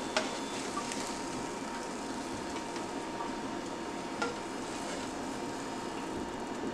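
Faint steady sizzle of cooking fat in a hot nonstick frying pan, with a couple of light knocks of a plastic slotted spatula against the pan as the folded egg is lifted out, one just after the start and one about four seconds in.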